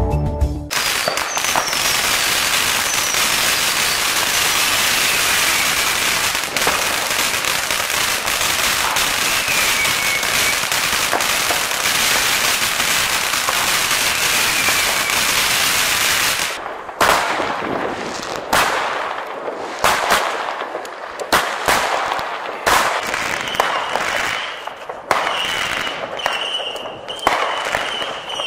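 New Year's Eve fireworks: a dense, continuous crackling of firecrackers and batteries, with a few falling whistles over it. A little past halfway it breaks into separate bangs and crackles with short gaps, and a steady high whistle joins in near the end.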